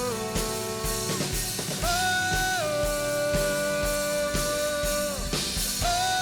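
Live band recording at its instrumental bridge: a kick drum beats steadily under long held notes that step from pitch to pitch. This is drum and instrument bleed on the soloed vocal microphone track, which the Rupert Neve 5045 Primary Source Enhancer is being used to hold down.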